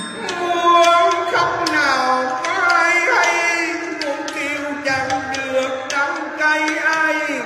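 A singer holding long, wavering, ornamented notes of a Huế funeral chant (hò đưa linh), a lament for the departed, over instrumental accompaniment with light percussive taps.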